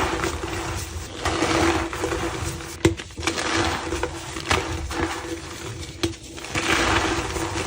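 Reformed blocks of white gym chalk being crushed by hand: repeated soft, crumbling swishes that swell and fade, with a sharp crack about three seconds in and another near six seconds.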